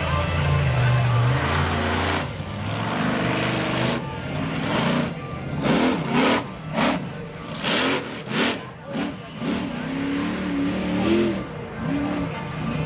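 Monster truck's engine running hard, then from about four seconds in a rapid run of roughly ten sharp throttle blips while the truck stands up on its rear wheels, before settling to a lower, uneven rev.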